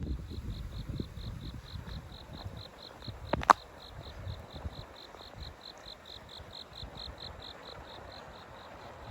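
An insect chirping in a steady high-pitched rhythm, about four chirps a second, over a low rumble. A single sharp click about three and a half seconds in is the loudest sound.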